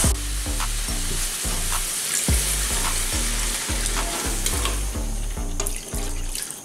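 Curry paste with ash gourd and fish sizzling in an aluminium kadai while a metal spatula stirs and scrapes the pan; about four seconds in, water is poured in from a steel bowl. Background music with a steady beat runs underneath.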